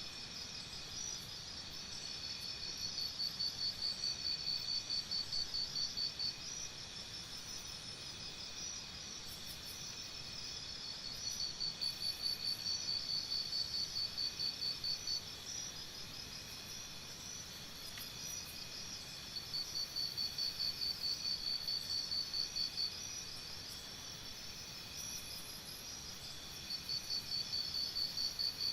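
Forest morning ambience of chirping insects: a high, pulsing chirp of about four pulses a second comes in bouts of a few seconds, about four times, over a steady background of other insects.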